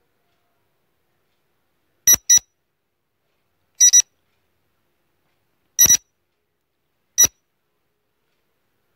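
Electronic countdown-timer beeps: short, high blips spaced about one and a half to two seconds apart, starting about two seconds in. The first three come as quick double beeps, the last as a single beep.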